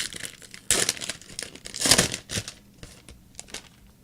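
Crinkling and tearing of a foil trading-card pack wrapper being handled and opened, in two loud rustles about one and two seconds in, with light clicks of cards being handled between them.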